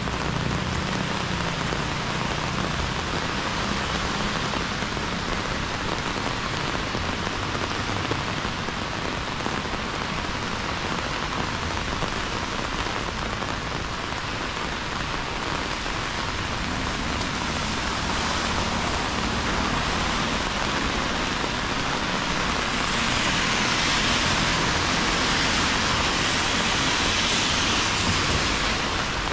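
Heavy rain pouring down on a city street: a steady, even hiss that swells louder and brighter for a few seconds near the end.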